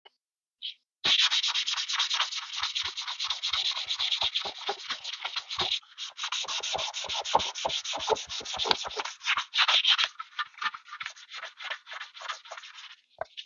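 Fine-grit sandpaper rubbed by hand in quick back-and-forth strokes over the grey-coated pressed-steel body of a vintage Tonka van, smoothing the coat. The strokes start about a second in, pause briefly near the middle, and are lighter near the end.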